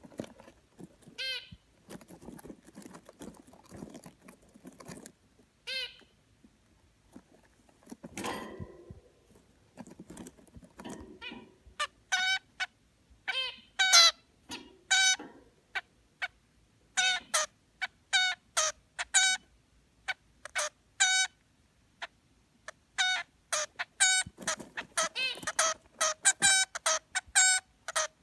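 A pet bird making short, high-pitched baby noises, a few at first and then repeated calls about one or two a second from about twelve seconds in. Soft scratchy sounds come between them in the first half.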